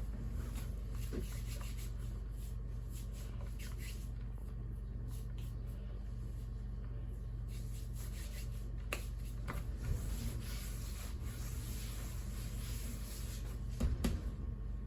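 Hands rubbing and working buckwheat soba dough or flour: soft, continuous rustling over a steady low hum, with a few light knocks about nine seconds in and near the end.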